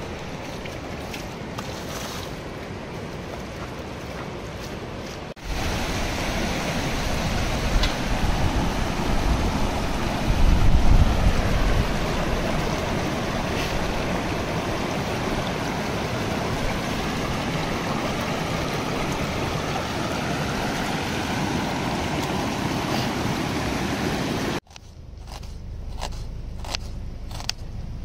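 Steady rushing noise that steps up suddenly about five seconds in, with low rumbling swells through the middle. It drops off suddenly near the end, where a few sharp clicks follow.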